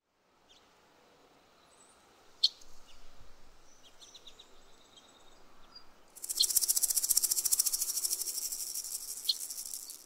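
Faint bird chirps over quiet outdoor background, then about six seconds in a loud, fast, even shaker rhythm starts: the opening of the background music.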